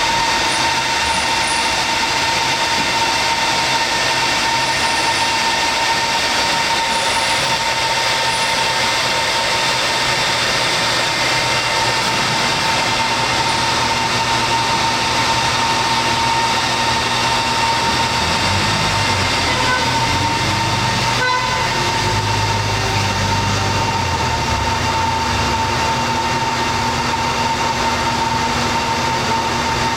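Top Tier floor-level palletizer running under power: steady machinery noise with a constant high whine. Partway through, a lower drone shifts in pitch for a few seconds, with a single clack in the middle of it.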